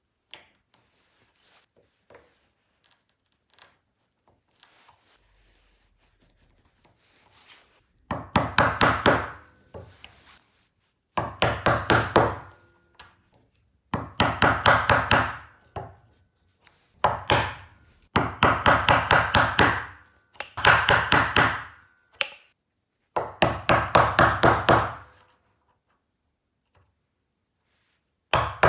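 Hand saw cutting wood in quick back-and-forth strokes, about five a second, in bursts of a second and a half to two seconds with short pauses between. Before the sawing starts, a few light taps and knocks of wood and tools being handled.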